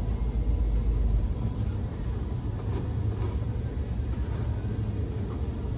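Steady low rumble heard inside a stopped car's cabin, with a few faint ticks.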